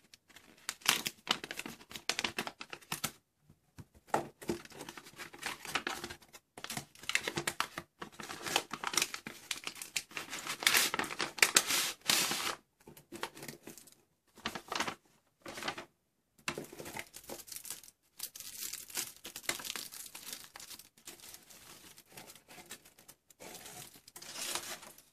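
Paper packaging crinkling and tearing as a parcel is unwrapped by hand, in irregular bursts with brief pauses.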